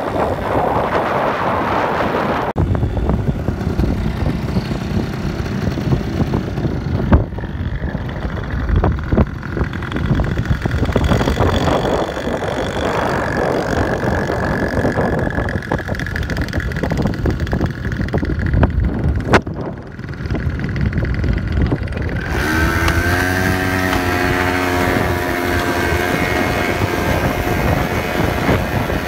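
Quad bike (ATV) engines running, with wind buffeting the microphone for much of the time and a couple of sharp knocks. Near the end, a close ATV engine runs at a steady pitch.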